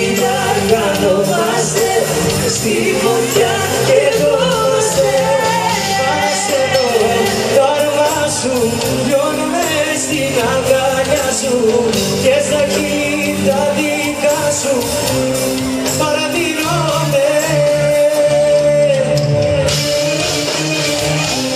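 Live band playing Greek pop music, a lead melody line winding over a steady bass and beat.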